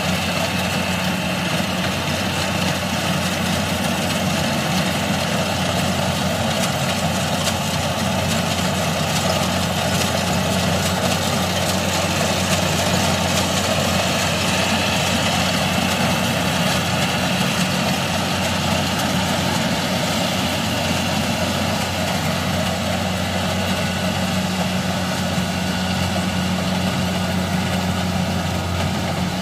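Kubota DC-70 combine harvester running steadily as it cuts and threshes rice: a constant low diesel engine tone under an even rush of machine noise, with no change in pace.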